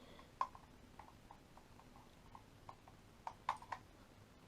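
Faint plastic clicks and taps of USB cable plugs being pushed into the ports of an Anker 10-port USB charger and handled, with a sharper click about half a second in and a quick cluster of clicks near the end.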